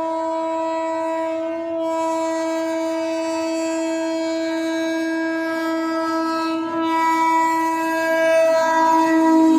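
Electric locomotive's horn held in one long, steady blast as the express approaches the station at speed. It dips briefly about two seconds in and again near seven seconds, then grows louder toward the end as the locomotive draws close.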